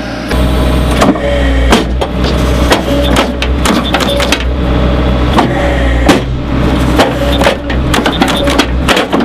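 Excavator engine running under a loud low hum, with frequent irregular metal clanks and short squeals as its arm-mounted tree-planting head works.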